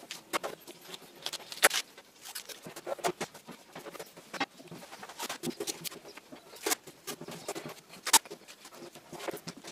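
Masking tape being peeled by hand off plywood edges: irregular crackling rips and ticks, with louder snaps about a second and a half in, near seven seconds and about eight seconds in.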